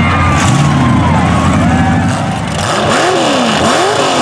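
Big mud-truck engines on tractor tires: one runs heavily, and after a cut about two and a half seconds in another is revved up and down in quick repeated throttle blips, about one every three-quarters of a second.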